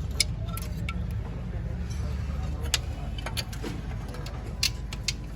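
Toyota Corolla XLi engine idling steadily, its exhaust giving an even low rumble, with several short sharp metallic clicks and taps on top.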